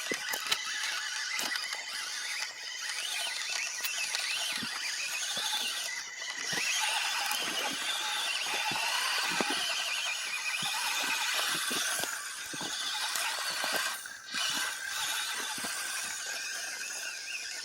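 FMS FCX24 1/24-scale RC crawler truck's small electric motor and drivetrain whining at a high pitch as it crawls through loose dirt, with dirt and small stones crackling and ticking under the tyres. The whine drops out briefly twice.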